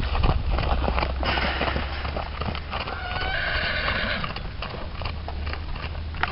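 A horse's hooves trotting on a gravel driveway, with a horse whinnying for about a second roughly three seconds in.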